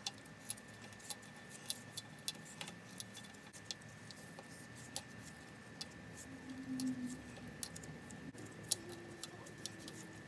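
Small sharp metallic clicks at an irregular pace, about one or two a second, from a folding hex-key set being worked against small screws in a brass sheet-metal box.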